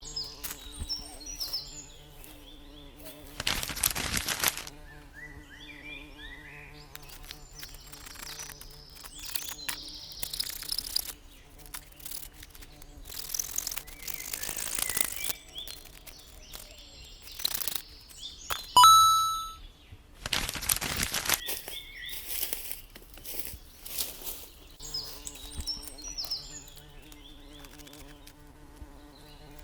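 Birds chirping over a steady low hum, broken by several loud rustling or scraping noises each about a second long, and one sharp bell-like ding about two-thirds of the way through that rings and fades.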